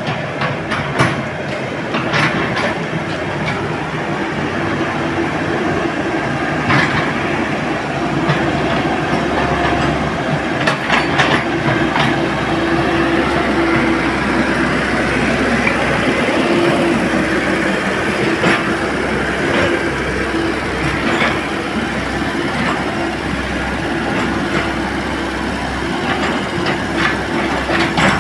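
Komatsu hydraulic excavator working: a steady engine and hydraulic drone with scattered sharp metal clanks and knocks throughout.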